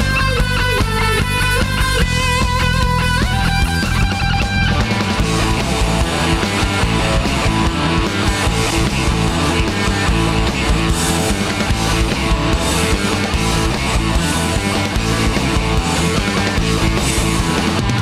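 Rock band playing an instrumental passage with no singing: a lead electric guitar melody over bass and drums for the first four or five seconds, then the full band with heavy, distorted guitars.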